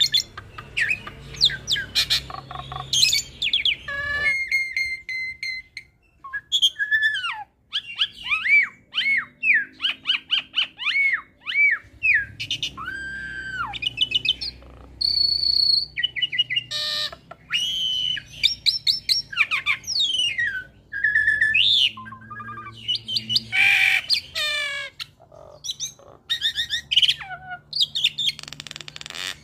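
Hybrid Asian pied starling × Nias hill myna (jalak suren × jalak nias) singing its varied chattering song: whistled notes, rising and falling glides and quick runs of chirps, broken by short pauses.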